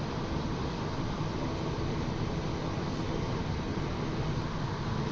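Steady in-flight cockpit noise of a Cessna Citation XL business jet: an even drone of airflow and engines with no change.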